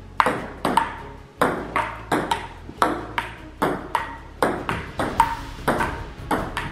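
Table tennis rally: a celluloid ball clicking sharply off paddles and bouncing on a STIGA table, about three hits a second, with a short lull about a second in.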